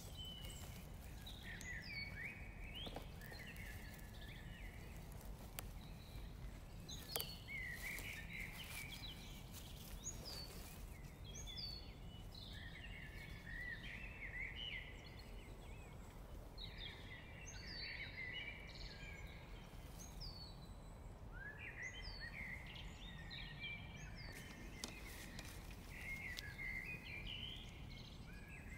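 A small songbird singing short, twittering phrases every couple of seconds over a steady low outdoor rumble. There are a few sharp clicks, the loudest about seven seconds in.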